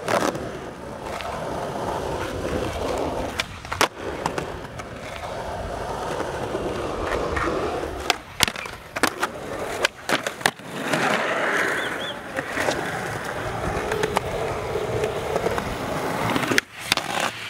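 Skateboard wheels rolling on smooth pavement, broken by a series of sharp wooden clacks from tail pops and board landings.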